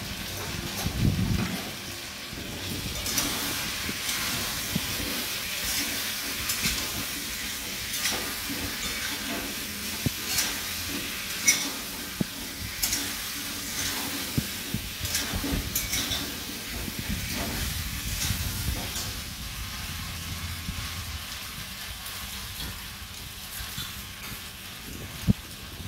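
Potatoes sautéing with spices in an aluminium kadai, a steady sizzle, while a metal spatula scrapes and clinks against the pan as they are stirred. The sharpest clinks come about halfway through and again near the end.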